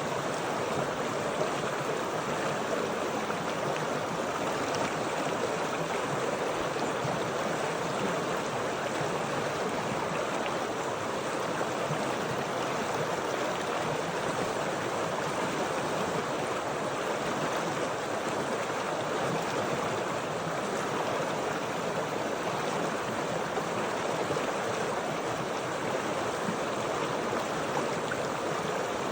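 Flowing water running with a steady, even rush that does not change.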